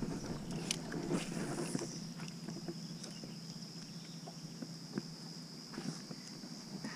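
Faint, scattered light clicks and knocks from a spinning reel and rod being handled in an aluminum boat, over a steady high-pitched hum.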